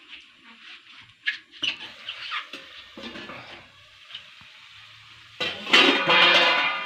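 Chicken frying in a metal pan over a wood fire, a spatula stirring and scraping with a few clinks, then a sudden loud hissing burst about five and a half seconds in that lasts over a second.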